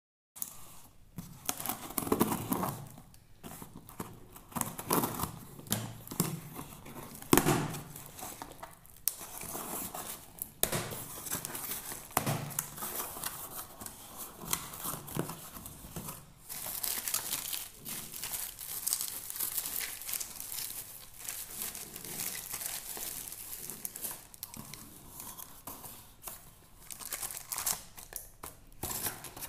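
Plastic bubble-wrap packaging crinkling and tearing as hands pull it open, in irregular bursts of rustling.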